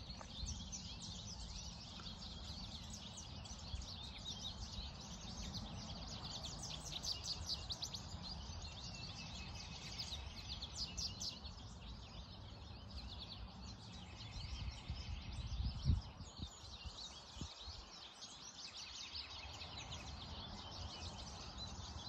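A flock of small finches chirping and twittering continuously in quick, high notes, which the observer takes mostly for yellow finches (American goldfinches) mixed with some other finch.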